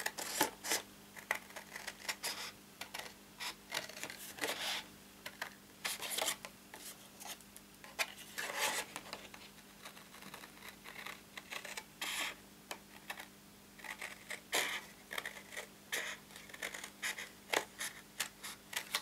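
Scissors cutting through stiff cardstock in a run of short, uneven snips, with a faint steady hum underneath.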